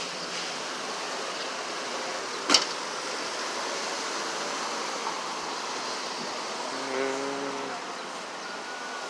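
Steady city street traffic noise, with one sharp bang or knock about two and a half seconds in, the loudest sound, and a short steady pitched tone lasting under a second about seven seconds in.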